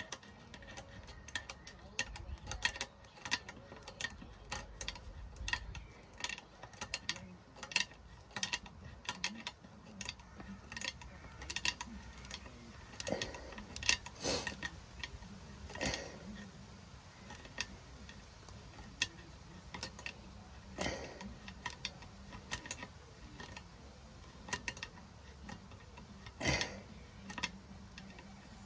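Water pump pliers tightening a nut on a ceramic toilet cistern's brass fixing bolt: irregular light metallic clicks and ticks.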